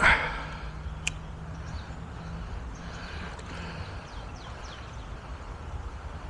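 Wind rumbling on the microphone outdoors, with a sudden sharp noise at the start that fades within half a second, a click about a second in, and a few faint high chirps around the middle.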